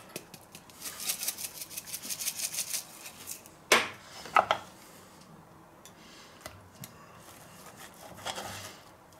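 Spice shaker shaken over a steak in quick strokes for about two seconds, the steak pepper rattling. Then two sharp knocks about a second apart on the wooden board, and near the end a faint scrape of knife and fork as the chop is cut.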